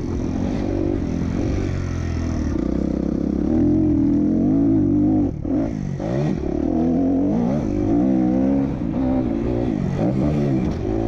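Motocross bike engine revving up and down as it is ridden, pitch climbing and falling repeatedly, with a brief throttle-off about five seconds in.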